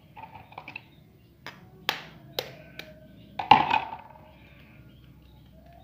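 A raw egg tapped four times against a hard edge to crack its shell, then a louder knock about three and a half seconds in as the shell gives.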